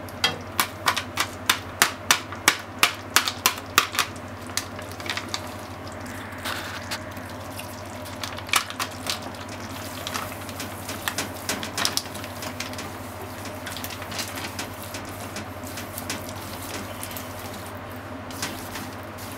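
Wooden chopsticks clacking against a frying pan while stirring ground pork in sauce: quick regular taps of about three a second for the first four seconds, then softer and more irregular. A steady low hum runs underneath.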